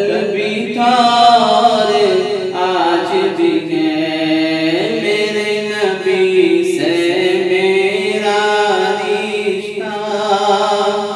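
A man's voice singing a naat without instruments, holding long notes that slide up and down in pitch over a steady low drone.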